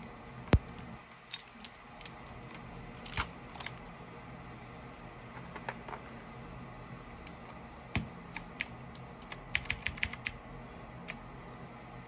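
Keys of a Keychron K8 Pro mechanical keyboard clicking as they are pressed down, in irregular single clicks and short quick runs rather than steady typing.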